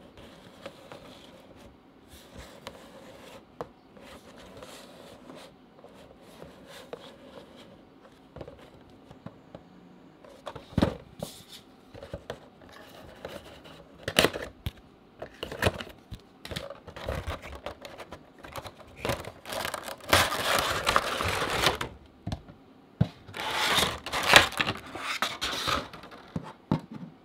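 Cardboard Funko Pop box and its plastic packaging being handled and opened: soft rubbing and taps at first, then sharp clicks and knocks. Two longer stretches of crinkling and scraping in the second half are the plastic insert being slid out.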